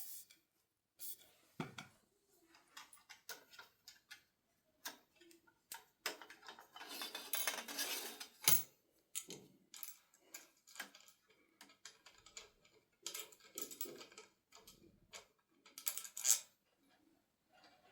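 Dishes and cutlery being handled: scattered light clinks and knocks, a denser stretch of handling noise around the middle, and a couple of sharper knocks, the loudest near the end.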